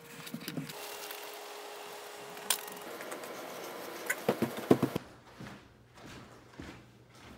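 A cluster of sharp wooden knocks and thuds about four to five seconds in, then quieter footsteps, as a heavy hickory stump is carried through a house.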